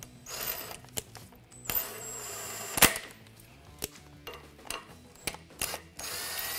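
Cordless electric impact gun spinning ring gear bolts into a Chevy 10-bolt differential carrier, only running them in with no torque applied. It goes in three short runs; the longest, about a second, ends in a sharp snap. Metallic clicks of the bolts and tool fall between the runs.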